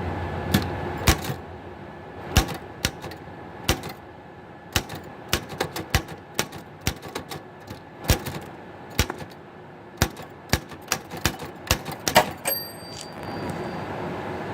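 Keys of a 1937 L C Smith & Corona manual typewriter striking the platen, about two to three keystrokes a second with short pauses between, and a brief ringing tone near the end.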